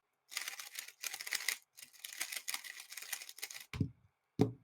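Rapid plastic clicking and clacking, typical of a 3x3 speed cube being turned fast. There are two short dull bumps near the end.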